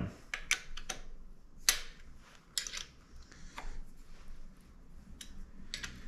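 Irregular light metal clicks and taps as an Allen key is fitted into and turned in the top bolt of a GT quill stem, tightening the bolt that draws up both stem shims. The loudest click comes a little before two seconds in.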